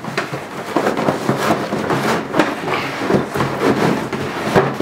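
Cardboard box and packaging insert being handled: an irregular run of rustles, scrapes and light knocks as the insert is lifted out of the open box.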